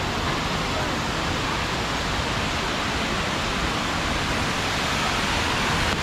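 Small rocky waterfall cascading close by: a steady, even rush of water.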